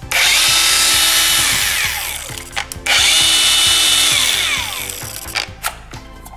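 Cordless 20 V angle grinder with no disc fitted, switched on twice. Each time it jumps at once to full speed with a high whine, runs for a little over a second, then coasts down with a falling whine.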